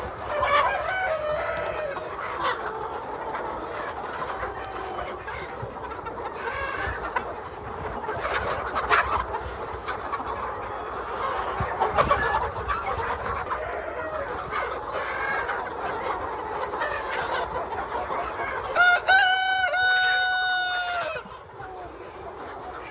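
Chickens clucking and calling throughout, with a rooster crowing near the end in one long call of about two seconds, the loudest sound here.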